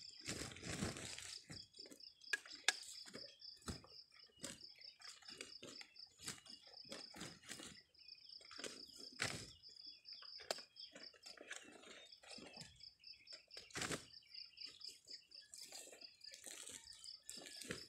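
Pieces of cut sugarcane knocking and clattering as they are gathered by hand and packed into woven sacks, with scattered sharp knocks, the loudest nearly three seconds in and another near fourteen seconds. Behind it, a high-pitched pulsing chirp.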